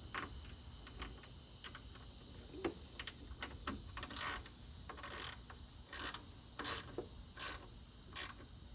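Hand socket ratchet clicking in short bursts as a fuel-tank mounting bolt is run down, with a few scattered clicks at first and then a steady run of strokes from about halfway in.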